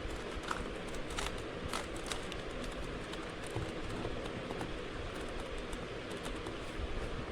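Faint plastic clicks of a Rubik's cube being handled and turned, a few scattered clicks, most of them in the first couple of seconds, over a steady background hiss and low rumble.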